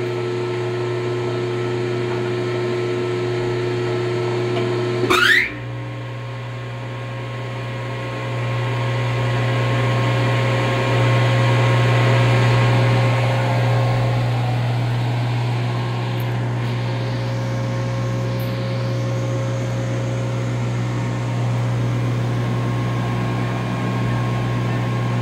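Hollymatic 4000 mixer grinder running empty on test, its motors humming steadily while the mixing paddles turn in the stainless hopper. About five seconds in a short rising whine marks the two-speed 20 hp grind motor going up to high speed, and the running grows louder for several seconds afterwards before settling.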